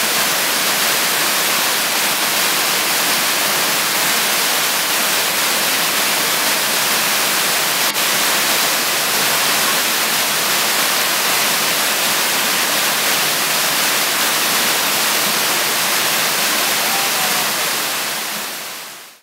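Waterfall rushing, a steady loud white-noise roar of falling water that fades out near the end.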